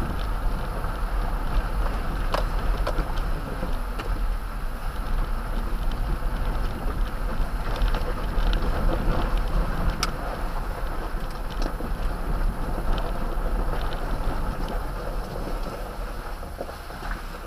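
Toyota Tundra pickup driving slowly over a rough dirt track, heard from a dashcam inside the cab: steady low rumble and tyre noise with a few sharp clicks of gravel and bumps, getting quieter near the end as the truck slows.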